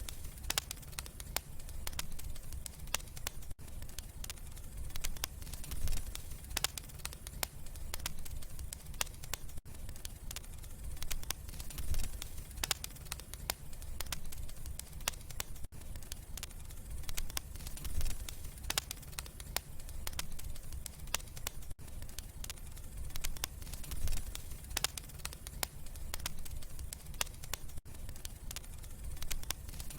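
Wood fire in a fireplace crackling, with frequent sharp pops and snaps over a low steady rumble. The sound drops out for an instant about every six seconds.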